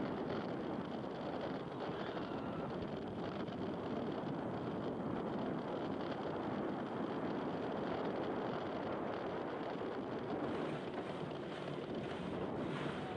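Roller coaster train running on its track, heard from the front seat: a steady rush of wind on the microphone over the train's rumble.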